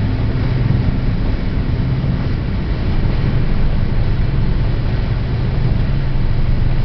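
Dodge Neon ES's four-cylinder engine running hard at high speed, heard from inside the cabin, with a steady low hum under constant road and wind noise.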